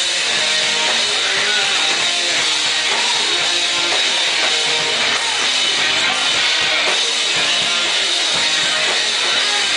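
Rock band playing loudly, with drum kit and guitars in a dense, steady wall of sound.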